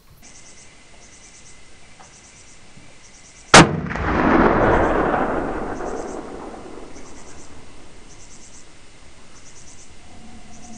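A single .30-06 rifle shot about three and a half seconds in: a sharp crack followed by a rolling echo that swells and fades over the next few seconds.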